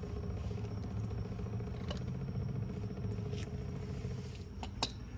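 Steady low mechanical hum, with a few faint clicks about two seconds in and near the end.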